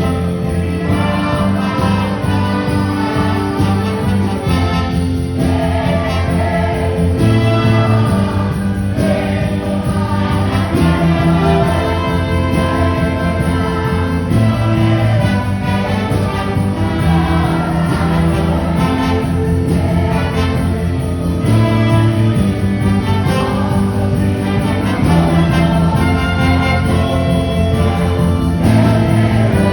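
Gospel music played by a band, with voices singing over a steady bass line and held chords.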